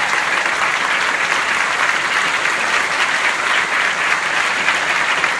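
Large audience applauding loudly and steadily, a dense, even patter of many hands clapping.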